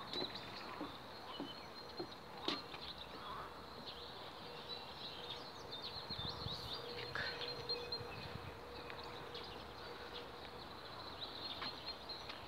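Birds chirping over a steady high-pitched trill, with a few knocks of footsteps on wooden boardwalk planks.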